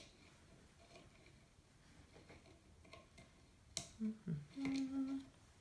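Faint ticks and clicks of small metal rods and couplers being handled and screwed together, with one sharp click about four seconds in. A short hummed voice sound follows just after the click.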